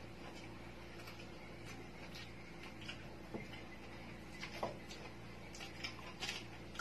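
Eating sounds: crisp roast pig-head skin being pulled apart by hand and chewed, heard as scattered short crunches and clicks that come more often in the second half. A faint steady hum lies underneath.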